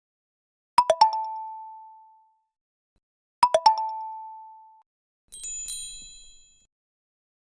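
Xiaomi Redmi Pad Pro notification tones: two identical short chimes about two and a half seconds apart, each a quick cluster of taps ringing out for over a second, then a different, higher and brighter chime that fades quickly.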